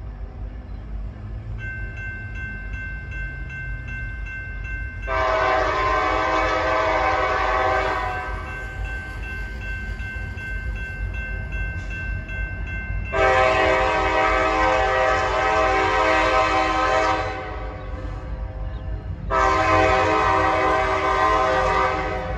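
Diesel locomotive's multi-chime air horn sounding three long blasts, with the steady rumble of the approaching train underneath.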